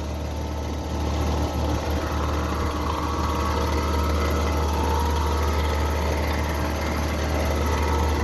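Carrier Sentry heat pump outdoor unit running with a steady deep hum and a weird noise from its LG compressor. The owner takes the noise as the compressor struggling and possibly failing.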